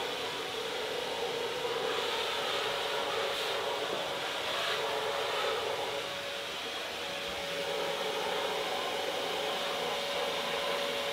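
Vacuum cleaner running steadily with a constant whine while its nozzle is worked along a window sill and frame.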